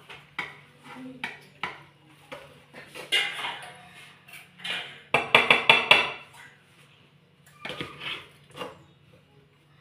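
Metal serving spoon scraping and knocking against an aluminium cooking pot as rice is scooped out and served, in scattered strokes with a quick run of scrapes about five seconds in.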